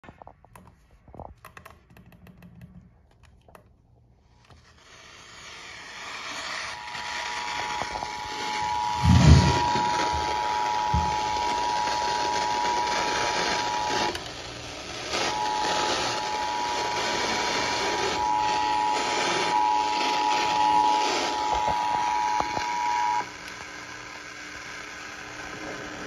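The Emergency Alert System's two-tone attention signal, two steady tones sounded together, playing through a Sangean weather alert radio's speaker over a hiss. It breaks off briefly about halfway as the radio is retuned to another FM station carrying the same alert, then stops a few seconds before the end. Faint button clicks come at the start and one loud thump about a third of the way in.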